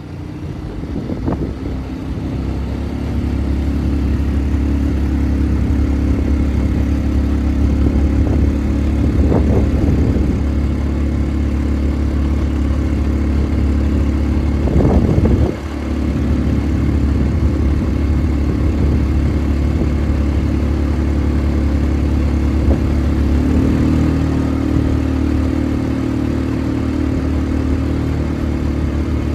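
ATV engine running steadily, its note shifting about two-thirds of the way through, with a few brief knocks along the way.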